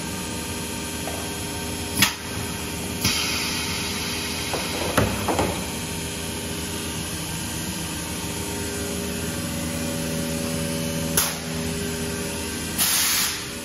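HOMAG BOF 311 Venture 15L CNC machining centre standing with a steady hum, with a few sharp clacks about two, five and eleven seconds in. Two short hisses of air, one about three seconds in and one near the end.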